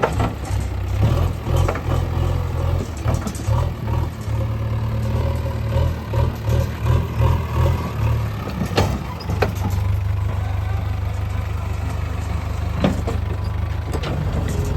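JCB 3DX backhoe loader's diesel engine working under changing load, its note pulsing up and down, then settling into a steadier run about eight seconds in. A few short, sharp knocks break in during the second half.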